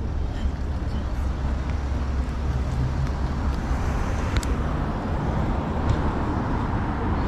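City street traffic: cars passing on the road alongside, a steady low rumble, with a couple of short clicks around the middle.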